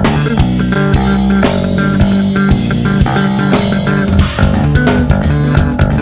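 Instrumental rock: electric bass playing sustained, riffing notes over a drum kit with frequent cymbal and drum hits.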